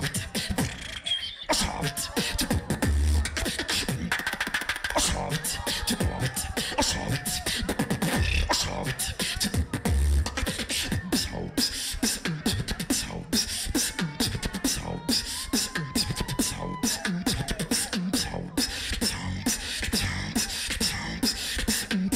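Live beatbox battle routine: a fast, dense stream of vocal clicks and snare-like hits over a few deep bass drops, with a short held tone about two-thirds of the way through.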